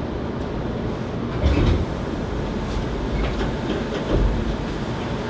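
Running noise inside a Hankyu 7300 series train car: a steady rumble with clicks of the wheels over the rails and two heavy thumps, about a second and a half in and again near four seconds.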